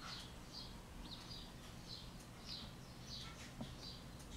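Faint small-bird chirping: short high notes, each dropping in pitch, repeated about twice a second over quiet room tone.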